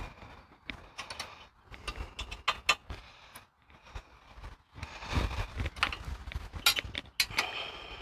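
Hex wrench clinking and scraping on the disc brake caliper's mounting bolts as they are tightened, a scattered series of small sharp metallic clicks with handling noise.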